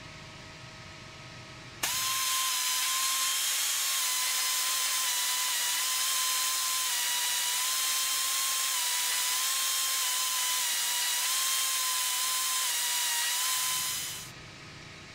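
Nitto Kohki BC-005 pneumatic burr cutter's air motor running, a high steady whine with hissing exhaust air, as its countersink deburrs drilled holes in a metal plate. It starts abruptly about two seconds in, its pitch wavers slightly, and it winds down near the end.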